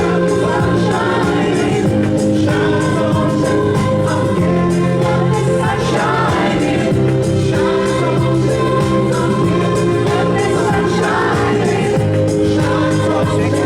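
A choir singing with accompaniment, in held chords that change every couple of seconds.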